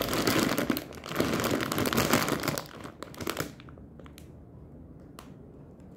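Plastic bag of dry penne rigate crinkling as it is turned over and squeezed in the hands, dense for about three and a half seconds, then only a couple of single crackles.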